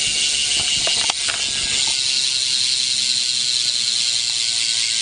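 Rear cassette hub of a BMX bike, an Odyssey V3, freewheeling with a fast, steady ratchet ticking as the wheel spins; the hub is brand new.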